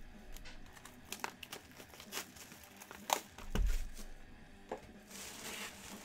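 Sealed trading-card boxes being handled: plastic wrapping crinkling, with scattered sharp clicks and a dull thump about three and a half seconds in as a box is set down.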